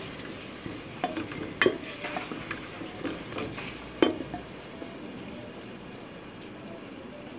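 Sliced onions with grated ginger and garlic frying in oil in a pressure cooker, sizzling steadily while being stirred with a spoon that knocks against the pot. Two sharper knocks come about one and a half and four seconds in, after which only the sizzle goes on.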